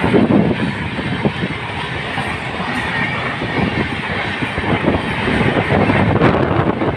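Coaches of a passing express train running close by at speed: a steady rumble and rush of steel wheels on the rails, with scattered clacks as the wheels pass over the track.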